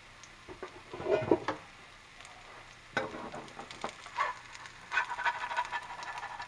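Pancake frying in a skillet with a soft sizzle, broken by scattered clicks and scrapes as a spatula is worked under the pancake, busiest near the end as it is lifted to turn.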